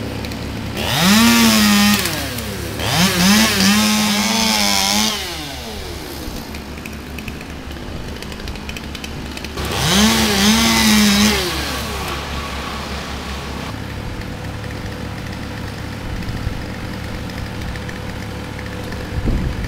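Two-stroke chainsaw revved hard three times, its pitch climbing fast and then holding high for a second or two each time, and running at a lower, steady speed in between.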